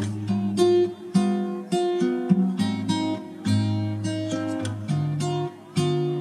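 Background music: an acoustic guitar strumming and plucking chords in a steady rhythm.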